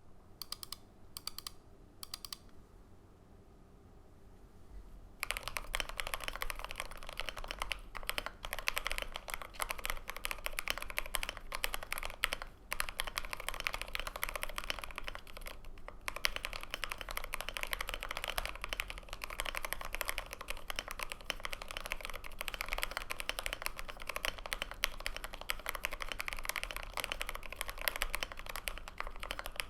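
Typing on a GMMK Pro mechanical keyboard with lubed Everglide Aqua King V3 linear switches, a polycarbonate plate, plate and case foam, and OSA keycaps. A few single keystrokes, then steady fast typing from about five seconds in.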